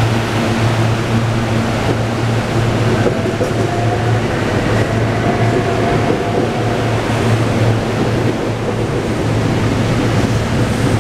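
SEPTA Regional Rail electric multiple-unit train pulling out past the platform: a steady low electric hum over the rumble of wheels on rail as the cars go by.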